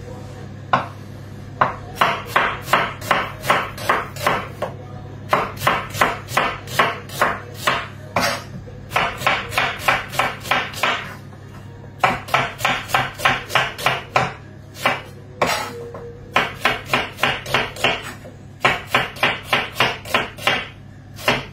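Kitchen knife chopping onions on a wooden chopping board: quick, even knocks about four or five a second, in several runs of two or three seconds with short pauses between.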